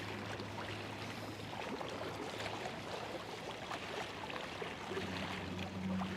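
River current rushing and splashing against a rocky point, a steady even wash, with a low steady hum beneath it.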